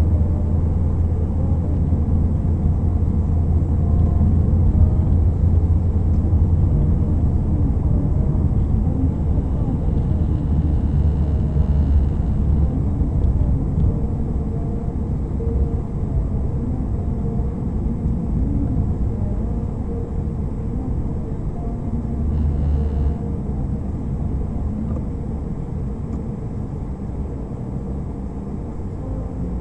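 Car interior road noise picked up by a dash cam's built-in microphone while driving: a steady low rumble of engine and tyres that rises and falls slightly.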